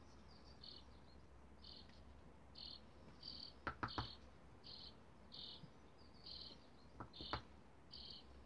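Faint, evenly repeated high chirps, about three every two seconds. Two pairs of light taps, about four seconds in and about seven seconds in, from a bottle top being pressed onto paper.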